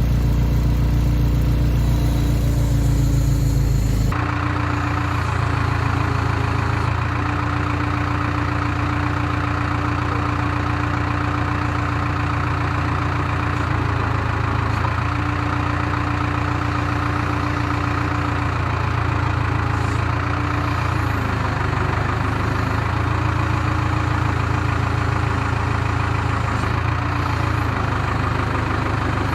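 Case 580K backhoe's diesel engine running steadily at idle while the bucket digs, with a higher tone that comes and goes. The sound changes abruptly about four seconds in.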